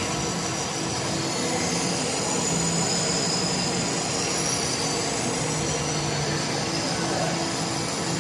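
Metal-turning lathe running: a steady machine noise with a faint hum that pulses on and off and a thin high whine above it.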